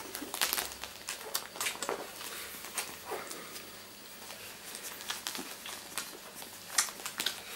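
Two-week-old miniature labradoodle puppies suckling at their mother: a busy run of quick wet smacking and clicking, with rustling as they jostle on the fleece blanket, and one short falling whimper about three seconds in.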